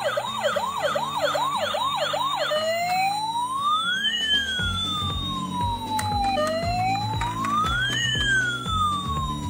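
Toy ambulance's electronic siren: a fast warbling yelp, about three cycles a second, changes about two and a half seconds in to a slow wail that rises and falls about once every four seconds. Background music plays low underneath.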